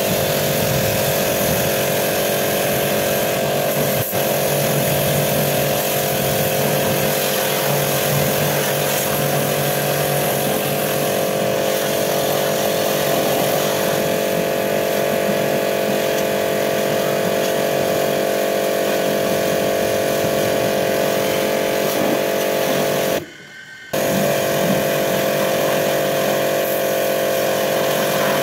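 Portable electric pressure washer running steadily, its motor humming under the hiss of the water jet spraying a car's wheel and side. The hum cuts out for under a second near the end, then starts again.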